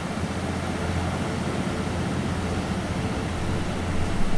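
Low droning isochronic tone, pulsing rapidly at a beta-range rate, over a steady hiss of ocean surf.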